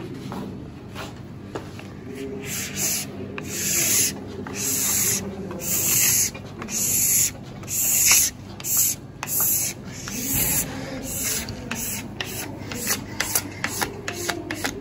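Wax scraper drawn along a ski base, stripping hardened ski wax left to soak in overnight. Long hissing strokes come about once a second, then quicker, shorter scrapes near the end.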